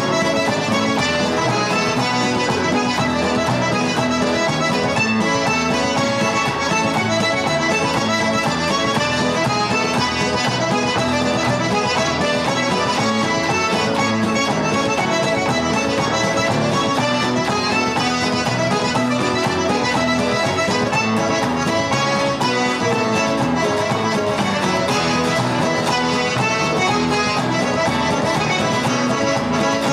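Solo button accordion playing a galop, a traditional dance tune, at a steady even loudness with quick-moving notes over a pumping bass.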